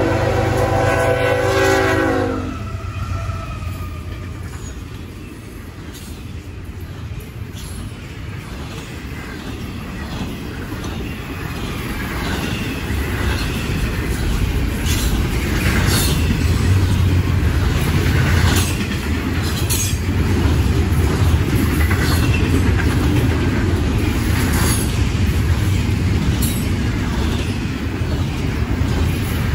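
A CSX diesel freight locomotive's air horn sounds a chord that cuts off about two seconds in. The locomotives then rumble past, followed by a long double-stack container train, its wheels clicking over the rails, and the rumble grows louder as the cars pass close by.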